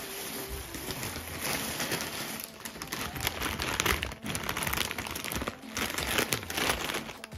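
Plastic shopping bag and a potato-chip packet crinkling and rustling as they are handled, an irregular run of crackles that comes in uneven flurries.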